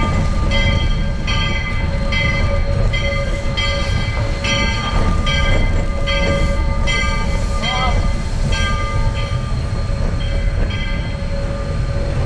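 Steam locomotive bell ringing steadily at about two strokes a second, heard from the cab over the low rumble of the locomotive getting under way.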